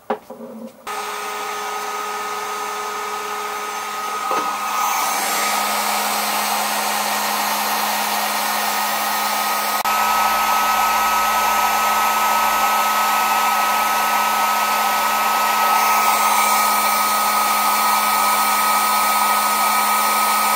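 Electric heat gun blowing hot air, with a steady whine over a rush of air, shrinking heat-shrink tubing onto a crimped copper battery-cable lug. It comes on about a second in and grows louder twice along the way.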